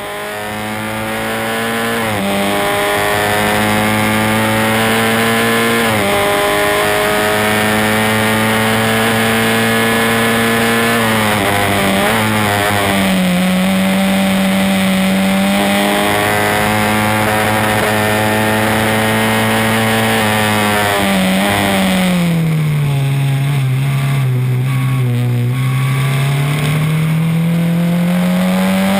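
Formula Ford 1600 single-seater's Ford Kent four-cylinder engine running hard, heard from on board the Swift SC92. The note dips briefly at gear changes about two, six and twelve seconds in. Past the middle the revs sink steadily for a slower corner, then climb again toward the end.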